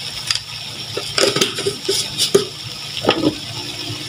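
Wooden spatula stirring pork belly in a stainless steel wok, scraping and knocking against the pan several times from about a second in to near the end, over a steady sizzle.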